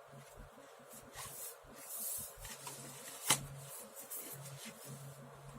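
Faint scraping and rustling of hands working on a laptop's casing and parts, with one sharp click about three seconds in.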